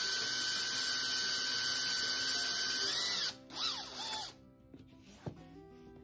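Makita cordless drill boring into a wooden carving blank held in a drill guide block: a steady motor whine at full speed that stops about three seconds in. It is followed by two short blips of the motor revving up and back down.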